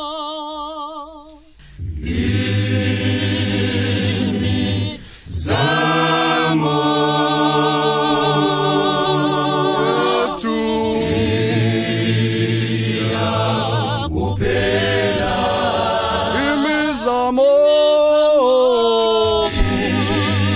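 Church choir of men and women singing a hymn in harmony, unaccompanied. A single wavering voice trails off at the start, and the full choir comes in about two seconds in.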